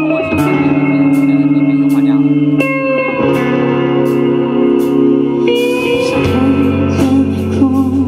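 Live rock band playing the instrumental intro of a song: electric guitar chords ringing out and changing about every three seconds over electric bass, with a cymbal ticking about twice a second.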